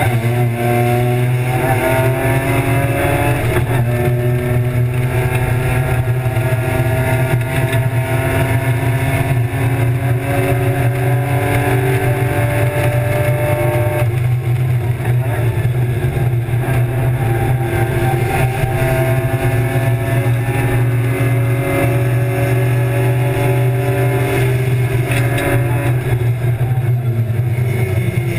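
BMW E36 325's M50 inline-six race engine, heard from inside the stripped cabin, pulling hard with rising revs. It drops sharply on upshifts about 4 seconds and 14 seconds in, and revs come down again near the end, over a steady low drone.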